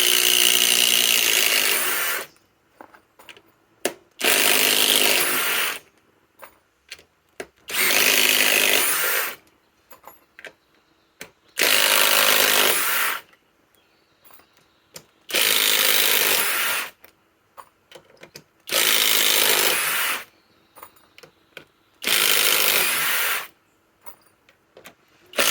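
Kobalt XTR 24-volt impact driver hammering as it backs out lag screws: seven loud bursts of about one and a half to two seconds each, one every three to four seconds, with small clicks in the gaps between.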